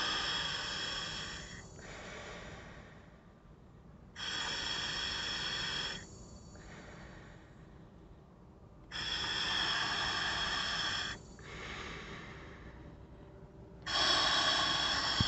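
Breathing through a scuba demand regulator on a DIY hookah rig fed by an oil-less air compressor. There are four loud hissing breaths about every four to five seconds, with a faint whistle in them, and quieter breaths between.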